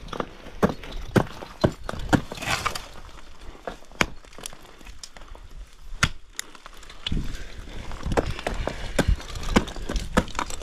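Ice axes and crampons striking into frozen waterfall ice: sharp, irregular impacts, about two a second at first, then sparser, then bunching together again near the end, with ice breaking off.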